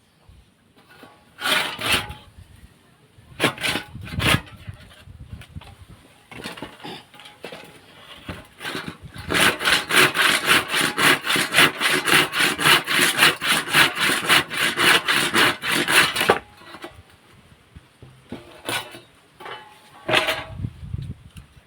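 Hand saw cutting wood: a few separate strokes at first, then a steady run of quick strokes, about four a second, for around seven seconds, stopping abruptly, with a few more strokes near the end.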